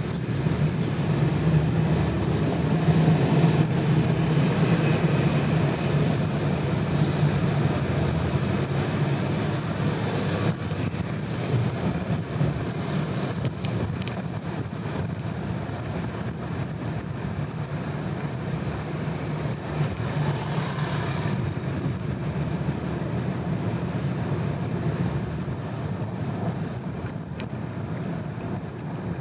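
Steady road noise of a car driving: tyre and wind noise with a low hum, a little louder in the first half, with a few faint ticks.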